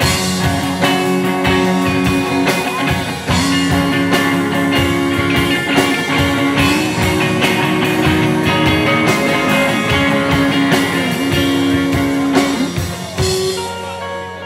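Rock band playing an instrumental break: electric guitar over a drum kit. The drums thin out and the sound drops back about 13 seconds in, leaving a quieter guitar part.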